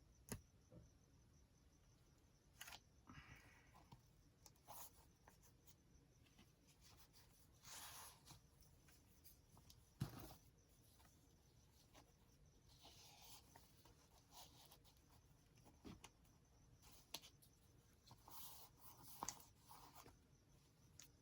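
Faint handling of a handmade paper journal: pages being turned and rustling in short swishes, with scattered light taps and clicks.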